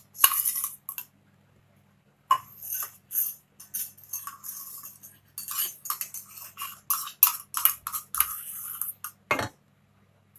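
Metal spoon clinking and tapping against containers and a kadai as ghee and oil are spooned in for heating. The clinks come in short clusters with quiet gaps, and there is a heavier knock near the end.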